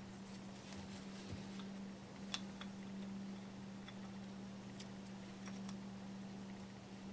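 Faint, scattered clicks of broken glazed ceramic shards, bound in masking tape, knocking lightly against each other as they are handled, over a steady low hum.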